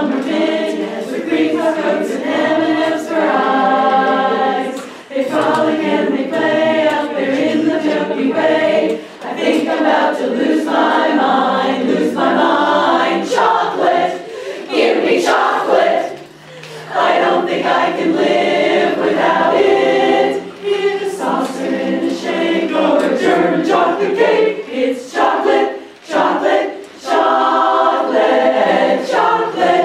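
A women's chorus singing a cappella in harmony, phrase after phrase, with brief breaks between phrases.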